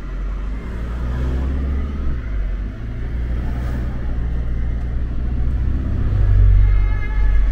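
A car driving on the road: a steady low engine and road rumble that grows louder about six seconds in.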